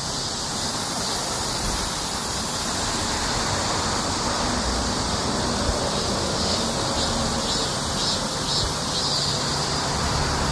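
A chorus of cicadas buzzing steadily in summer heat, a dense high-pitched hiss with a faint pulsing that comes and goes in it.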